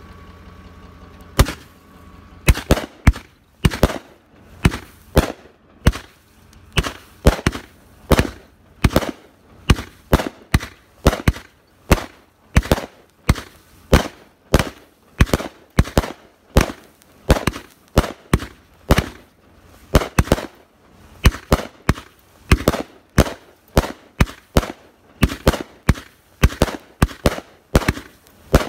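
A 500-gram consumer firework cake shooting off shot after shot: sharp aerial bursts about two a second, starting about a second and a half in and going on without a break.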